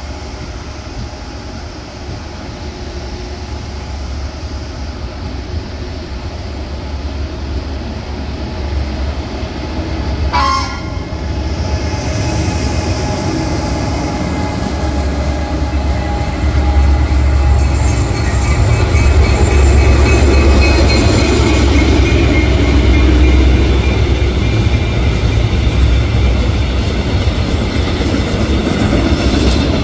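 Trains running through a railway station. An SRT high-speed train's running noise builds up steadily, with a short horn toot about ten seconds in. From about seventeen seconds a freight train rolls past, louder, with a heavy low rumble.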